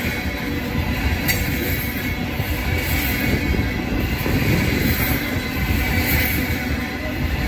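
Freight train of coal gondola cars rolling past close by: a steady rumble of steel wheels on the rails, with a faint wheel squeal and a single sharp click about a second in.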